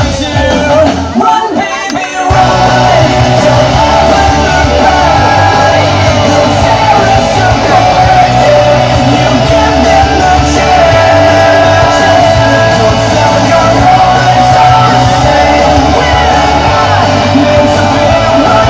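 Loud rock music with singing and shouted vocals over a full band with a steady bass line; it thins out briefly in the first two seconds, then comes back in full.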